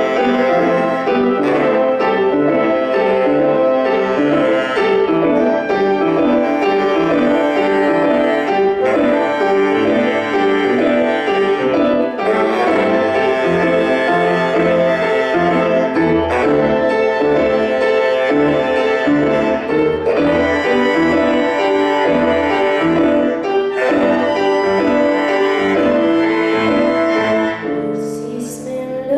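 Live instrumental music with piano to the fore and bowed strings; no singing. The music drops off briefly near the end.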